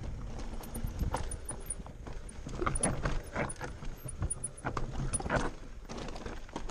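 Mountain bike rolling down a loose rocky trail: tyres crunching and knocking over stones in quick irregular clatters, with the bike rattling over the bumps and a low rumble underneath.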